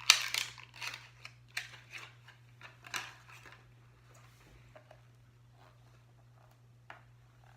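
Packaging being handled and opened: a quick run of sharp crinkles and clicks over the first three and a half seconds, then a single click near the end.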